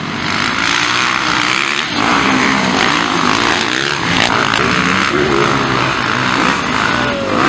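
Motocross dirt bike engines revving hard and easing off, several bikes at once, the pitch climbing and dropping again and again as riders accelerate through the turns and bumps.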